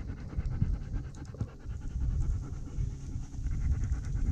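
A German Shepherd panting in a quick, even rhythm, close to the microphone.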